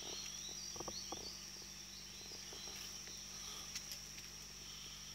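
Insects droning: a steady, even, high-pitched buzz, with a few soft knocks about a second in.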